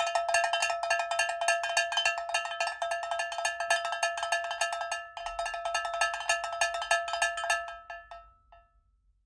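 A fast, even run of ringing metallic bell-like strikes, all at the same pitch, with a short break about five seconds in. It fades out near the end.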